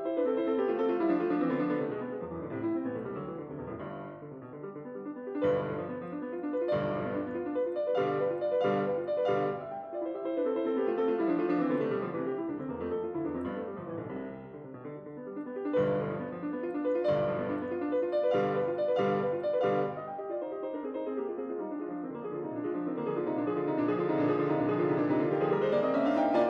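Solo piano music.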